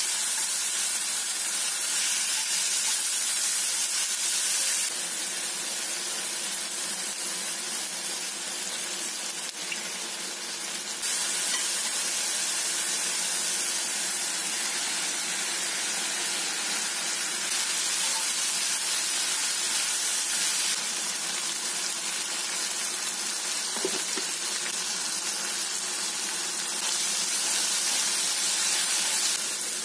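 Seal meat and vegetables sizzling in a hot cast-iron skillet as they are stirred with chopsticks. It is a steady frying hiss that steps louder and quieter a few times.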